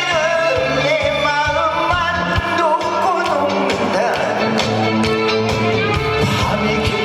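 Live trot music played loud over a sound system: a singer's wavering, vibrato-laden vocal line over a band with a steady drum beat.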